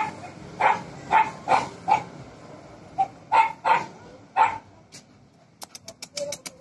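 Dog play-barking at a monkey: about nine short, sharp barks in quick succession, then a pause with a brief run of faint clicks near the end.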